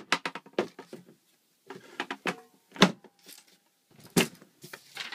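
Irregular clicks and knocks of a 1946 Smith-Corona Silent typewriter being unlatched from its original carrying case and lifted out, with two louder knocks, one a little before three seconds and one about four seconds in.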